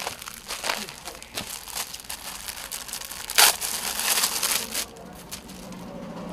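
Crinkling and rustling as suit fabric is unfolded and handled for display. It comes in an uneven run of rustles, loudest about three and a half seconds in, then dies down.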